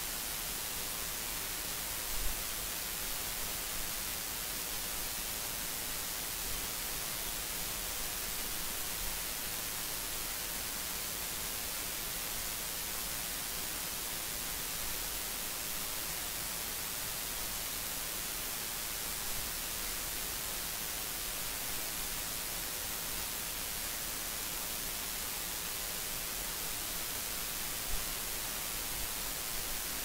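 Steady hiss of the recording's own noise floor, brightest in the treble, with a faint low hum under it. A couple of small low bumps stand out, one near the start and one near the end.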